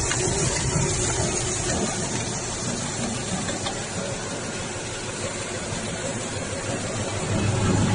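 Vertical plastic mixer running, with plastic pellets pouring out of its discharge chute onto a stainless-steel tray in a steady rush of noise; a low hum grows near the end.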